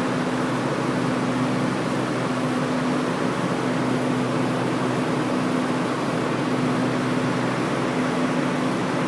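Daikin packaged air conditioner running: a steady rush of air from the condenser fan over a constant low hum.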